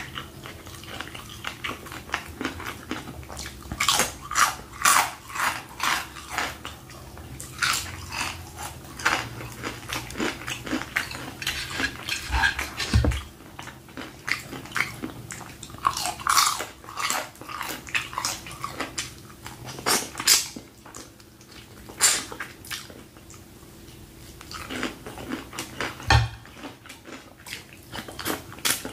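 Close-up chewing and biting of crispy fried chicken: many short wet clicks and crackles from the mouth, coming in clusters. Two dull thumps, one about halfway through and one near the end.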